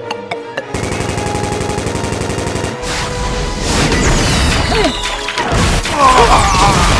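Background music layered with added battle sound effects: a fast, even rattle like machine-gun fire, then louder booms and whooshing glides from about three seconds in.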